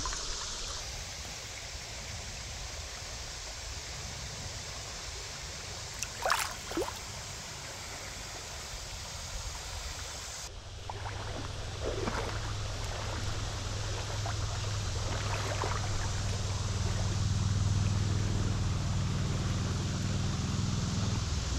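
Shallow, clear stream running steadily over a rocky riffle. About six seconds in come two short sharp sounds, and from about halfway a low steady hum joins the water.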